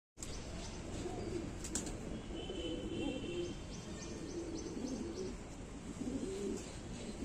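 A flock of Satin fancy pigeons cooing, several birds at once, so the low calls overlap and run on without a break.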